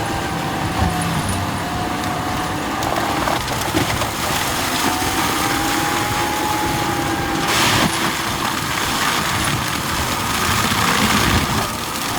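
Land-clearing tracked mulcher (Prinoth Raptor 800) running hard, its engine and cutter making a steady dense din with a whine that slowly rises and falls. There is a louder rasping burst about halfway through, as material is shredded.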